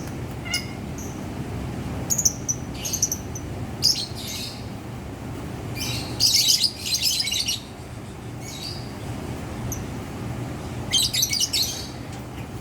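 Lovebirds chirping and chattering in short, shrill bursts, with a dense bout of chatter about halfway through and another near the end, over a steady low background hum.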